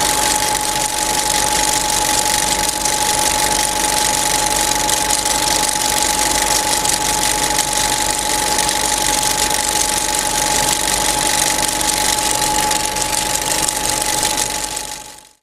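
Film projector running with a steady mechanical whir, hiss and a steady high-pitched tone; it cuts off suddenly at the end.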